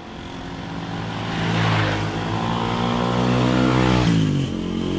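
A motor vehicle's engine approaching and passing close by: the engine sound builds up over the first few seconds, then its pitch drops as it goes past about four seconds in.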